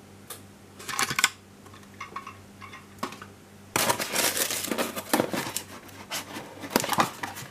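White paper packing rustling and crinkling as it is pulled out of a small cardboard box, with the box handled by hand. A couple of short rustles come about a second in, then a busier stretch of crinkling starts about four seconds in.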